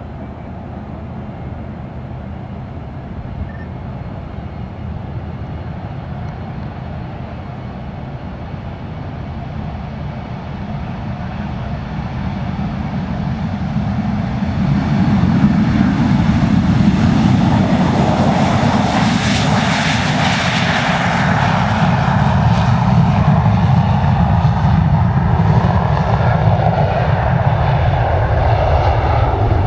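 Boeing 737-200 jet airliner on its takeoff roll at full thrust, its JT8D turbofan engines growing louder as it accelerates down the runway toward and past the listener. The sound is loudest about two-thirds of the way in, with a rising hiss, then drops in pitch as the jet passes and lifts off.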